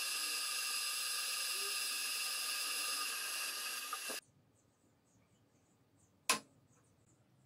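Benchtop milling machine's spindle running with a steady high-pitched whine as a small twist drill bores into a metal part held in the vise; it cuts off suddenly about four seconds in. Near the end comes a single sharp click of the metal part being set down on the machine's table.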